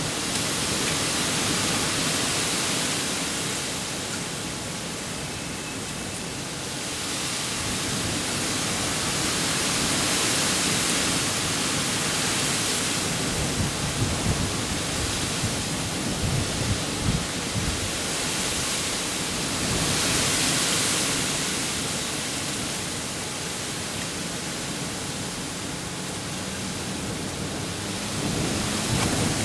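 Wind rushing in gusts across open ground, swelling and easing every several seconds, with some low rumbling in the stronger gusts.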